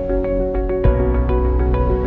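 Instrumental background music with a quick run of repeated notes over held chords; the bass and chord change about a second in.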